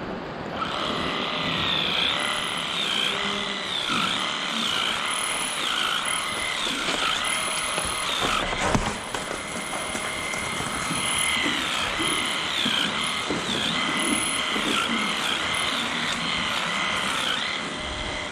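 Electric livestock clippers running steadily in a whine whose pitch dips briefly many times over, trimming a dairy cow's tail hair; the whine fades for a couple of seconds around the middle. A single sharp knock comes about halfway through.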